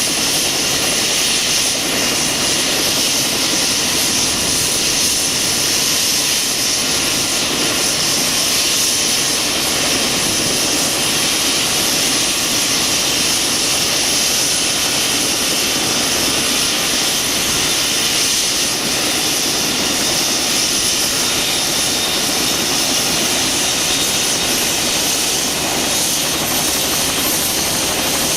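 Bell 206LT TwinRanger helicopter's twin turboshaft engines and rotor running at a steady, even level, a loud turbine whine and rush that does not change in pitch or loudness.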